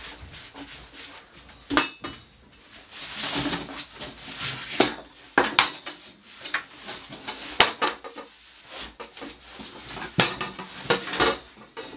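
Metal ironing board being opened and folded: its steel legs and folding mechanism clank and click in a string of irregular sharp knocks, with scraping and rattling between them.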